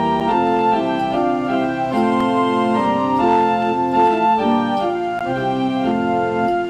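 Church organ playing the postlude at the close of a worship service: several held notes sounding together, the chords changing every half second or so.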